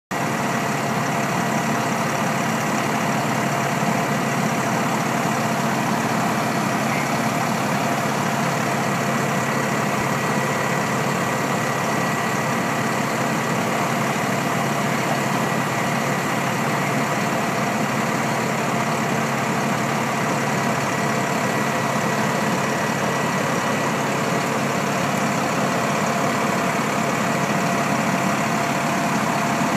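Fire engine's engine idling steadily, with a constant high whine over the running.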